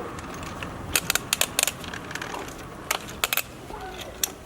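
Kick scooter clattering on hard ground during tricks: a series of sharp clacks and knocks, in two clusters about a second and three seconds in.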